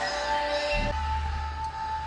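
Eletrofunk music with heavy bass, played through a car's sound system. A held synth note cuts off about a second in while the bass carries on.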